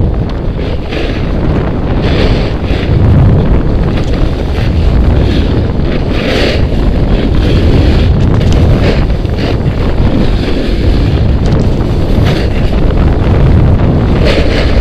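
Heavy wind buffeting on the microphone of a snowboarder moving downhill, a continuous low rumble, with the snowboard's edges scraping and hissing over packed, tracked snow in irregular bursts.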